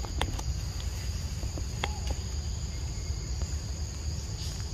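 Steady high-pitched insect drone from crickets or cicadas, two even tones held throughout, over a constant low rumble, with a few soft ticks and rustles.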